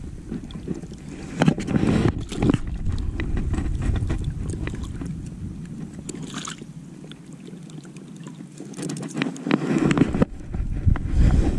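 Wind rumbling on a chest-mounted action camera's microphone, with a few short splashes and knocks as a giant snakehead (toman) held in the shallows by a lip grip is released into the water. The rumble eases for a few seconds in the second half, then returns.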